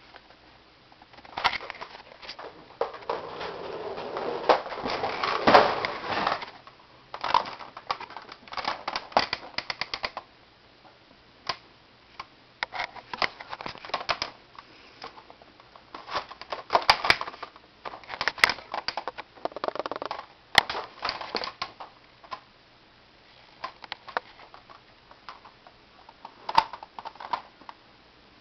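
Close handling noise: irregular rustling and scraping with scattered sharp clicks, coming in uneven bursts, the loudest a longer rustle about five seconds in.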